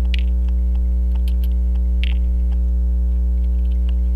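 Loud, steady electrical mains hum, with faint small clicks and taps scattered through it from tweezers and tiny watch parts being handled.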